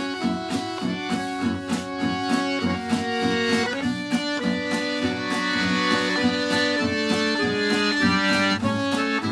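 Background music: an instrumental tune with held notes and a steady beat.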